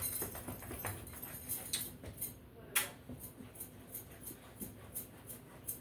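Spatula stirring a thin flour and club-soda batter in a bowl, in quick repeated strokes about three a second, with one sharper click against the bowl a little under three seconds in.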